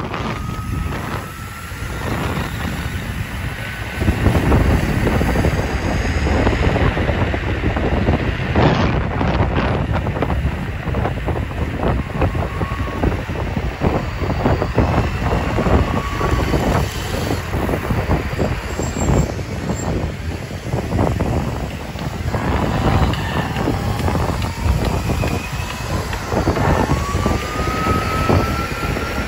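Wind buffeting the microphone and tyre noise on asphalt while riding an electric scooter, louder from about four seconds in. Faint rising whines come from the electric motors as they speed up, most clearly at the start and near the end.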